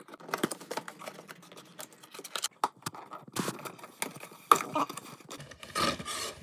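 Scissors cutting through a cardboard toy box, then the box being handled and opened: irregular clicks, snips and crackles of card, with a longer rustle of cardboard sliding near the end as the inner tray is pulled out.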